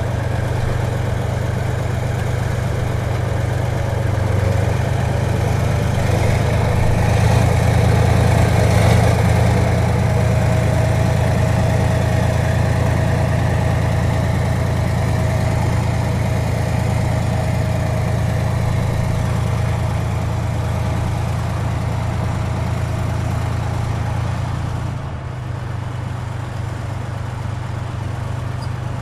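T-72 tank's V12 diesel engine running steadily, a deep even drone. It grows a little louder several seconds in and drops back slightly near the end.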